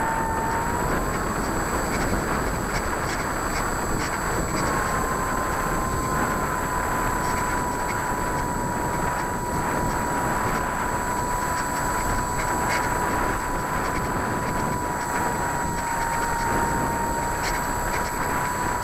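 RC model airplane's motor and propeller running in flight, heard from the onboard camera: a thin steady whine over a rush of air on the microphone. The whine fades about a second in and comes back about four seconds later, drifting slightly in pitch with the throttle.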